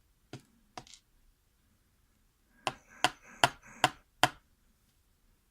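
Two light clicks, then five sharp metallic taps about 0.4 s apart with a faint ring: a lock cylinder being tapped and handled during disassembly.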